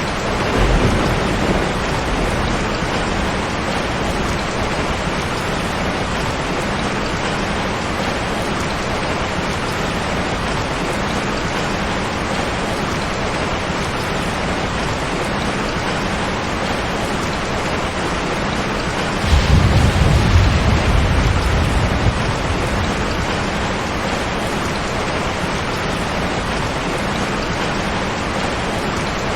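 Heavy rain falling steadily on a tin roof, with a short low rumble about a second in and a louder roll of thunder starting about two-thirds of the way through and lasting a few seconds.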